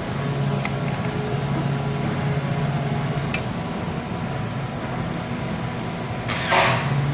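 A steady low machine hum, with a couple of faint clicks and a short rustle near the end.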